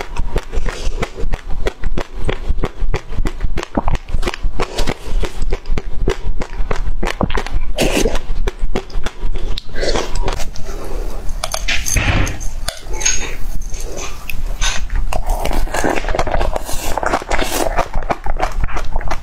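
Close-miked chewing of passion fruit pulp, the seeds crunching in quick, crackly clicks.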